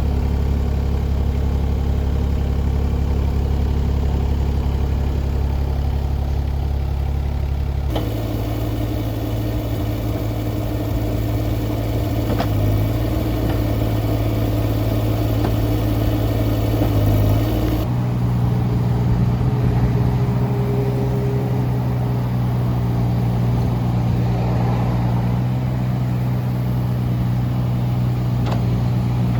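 Kubota U-17-3A mini excavator's diesel engine running steadily, its pitch stepping up about a quarter of the way in and changing again about two-thirds of the way through, as engine speed or load changes during the operation check.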